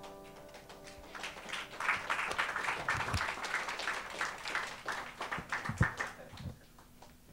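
A held keyboard chord fades out in the first second, then the congregation applauds for about five seconds, with a few low thumps.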